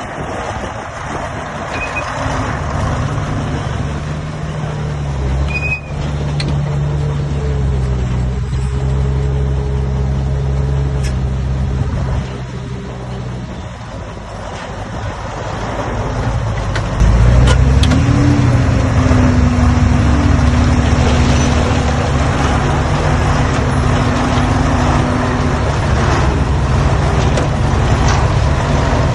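Heavy diesel engine of earthmoving machinery running steadily. It eases off about twelve seconds in, then rises sharply and runs louder from about seventeen seconds in.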